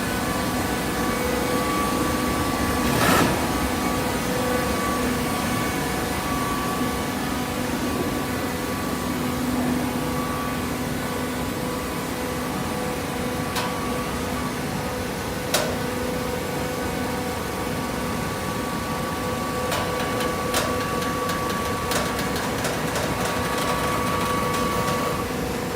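Hydraulic automatic fiber baler running: a steady hum from its motor and pump, with a louder knock about three seconds in and a few sharp clicks later on.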